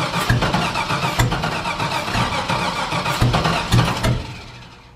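Starter motor cranking the LS V8 over with a rough, pulsing rhythm. The engine does not catch, and the cranking stops about four seconds in.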